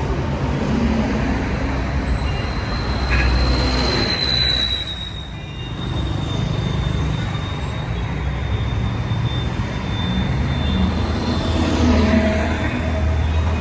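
Busy city-street traffic: cars and buses passing with engines running and tyres on the road, easing briefly about five seconds in before building again. A thin, high, steady tone runs through it.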